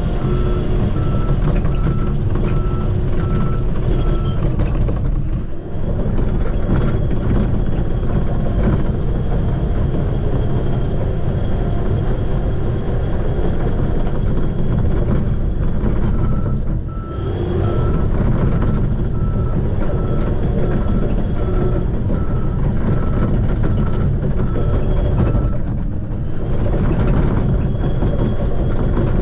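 Shantui bulldozer's diesel engine running steadily, with its reversing alarm beeping about twice a second for the first four seconds and again for a long stretch past the middle as the machine backs up.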